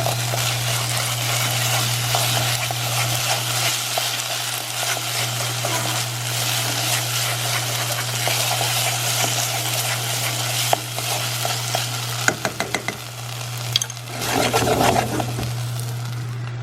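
Rice and tomato sauce frying in oil in a pan, sizzling steadily as the sauce cooks down from red to orange, with a spoon stirring it. A few sharp taps of the spoon on the pan come near the end.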